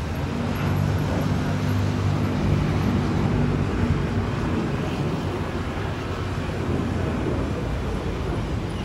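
Road traffic passing close by, a steady wash of vehicle noise. A nearby vehicle's engine hum is strongest for about the first four seconds, then fades into the general traffic noise.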